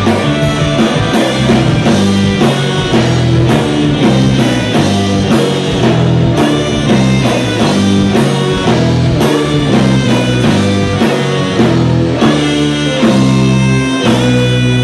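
Live rock band playing an instrumental passage: electric guitar, keyboard and drum kit over a steady bass. Near the end the drums stop and a chord is held.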